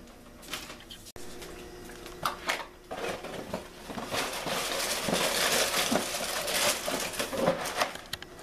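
Dry oat cereal pouring from its box into a plastic bowl: a dense, continuous rattle for about five seconds, after a few rustles and knocks as the box is handled.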